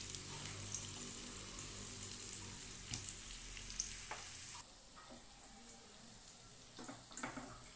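Breaded wheat gluten pieces shallow-frying in hot oil in a nonstick wok: a steady sizzle with crackles, and now and then a fork knocking and scraping against the pan. The sizzle becomes quieter a little past halfway.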